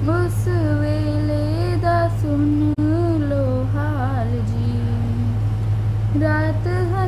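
A girl singing a slow, ornamented melody into a handheld karaoke microphone, pausing briefly about five and a half seconds in before the next phrase. A steady low hum runs underneath.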